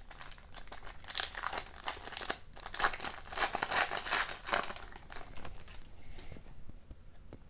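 Foil wrapper of a hockey card pack crinkling and tearing as it is ripped open by hand. The crinkling dies away about five seconds in, leaving faint handling of the cards.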